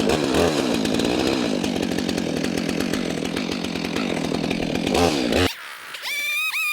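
Chainsaw running and bucking small pieces of firewood, its engine pitch dropping and rising as it cuts. It cuts off abruptly about five and a half seconds in, and a quieter high, wavering whine follows.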